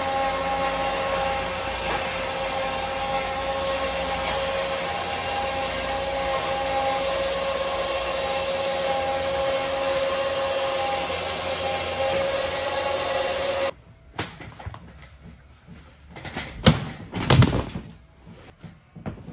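Floor blower (carpet air mover) running with a steady whir and a few constant tones; it cuts off abruptly about three-quarters of the way through. A couple of sharp knocks and rustles follow as a rug is handled on a pipe drying bar.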